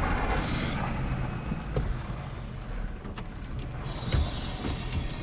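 A car running or driving, a steady low rumble with a few light clicks and rattles.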